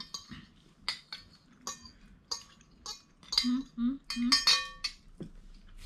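Metal spoons and forks clinking and scraping on ceramic plates during a meal: about a dozen light, irregular strikes, each with a short ring.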